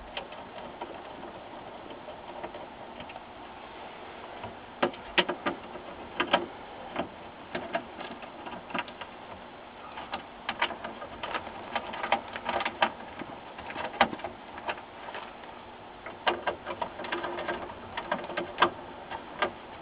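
Hand screwdriver turning out screws from a TV's sheet-metal chassis: irregular clicks and small metallic taps of the tool and screws, over a faint steady hiss.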